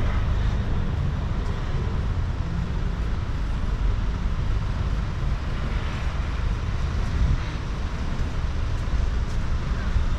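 Outdoor city street ambience: a steady low rumble with an even background hiss, with no single distinct event standing out.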